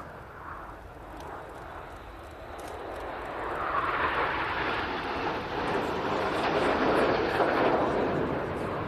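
Seven BAE Hawk T1 jets, each with a Rolls-Royce Turbomeca Adour turbofan, flying past together in close formation. The jet noise swells about three seconds in and stays at its loudest through the second half.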